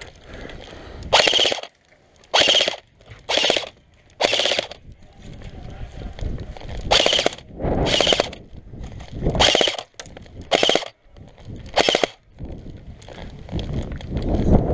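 Airsoft light machine gun firing about nine short bursts of rapid shots, each about half a second long, with gaps of about a second between them.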